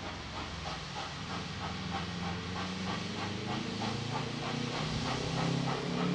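NSW 59 class 2-8-2 steam locomotive 5917 working uphill, its exhaust chuffing in a steady rhythm of about four beats a second over a low hum, growing louder as it approaches.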